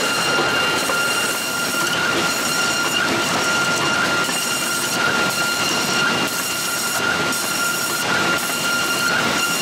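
Ledinek Stratoplan 4VA calibration planer running, its cutterheads machining a timber workpiece as it feeds through. A steady high whine sits over dense, even cutting noise.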